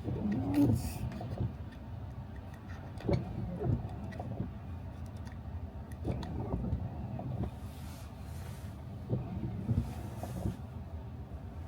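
Car driving on snow-covered streets: a steady low rumble of engine and tyres, with scattered small knocks and two brief higher hisses late on.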